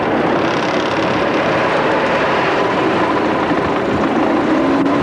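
Car driving along: a steady engine note under heavy wind and road noise on the microphone, heard from inside the moving car, the engine note rising slightly near the end.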